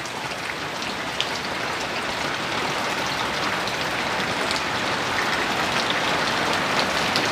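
Rain falling steadily on surfaces around the microphone, an even hiss dotted with sharp little ticks of individual drops.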